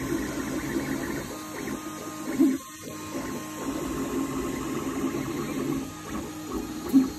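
Geeetech A20M 3D printer running a print: its stepper motors sound in shifting, stepped tones over the hum of the cooling fan. Two brief thumps, one about two and a half seconds in and one near the end.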